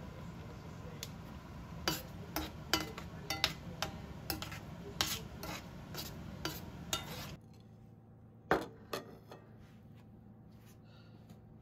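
A metal spoon stirs gnocchi in cream sauce in a stainless steel frying pan, clinking against the pan about a dozen times over a steady low hum. The sound then drops away abruptly, and a utensil clinks twice on a dish.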